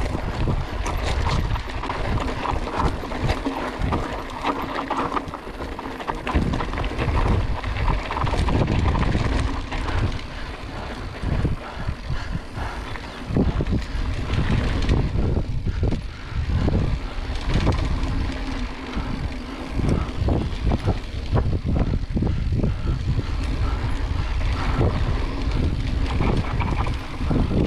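Mountain bike being ridden over rough trail, with frequent knocks and rattles from the bike over bumps and wind buffeting the microphone.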